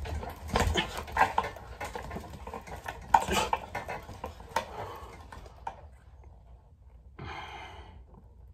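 Speed bag being punched in an uneven, beginner's rhythm: the bag slaps against the rebound platform every half-second to a second, the hits growing fainter after about five seconds. A short rushing noise follows near the end.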